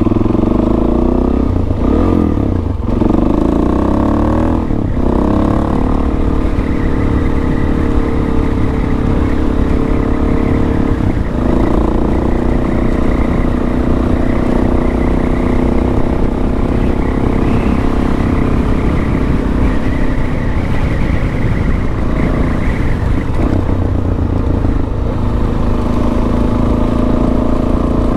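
Suzuki DR-Z400S single-cylinder four-stroke engine under way. Its pitch rises and drops a few times in the first five seconds as it is worked through the gears, then it settles into a steady cruise.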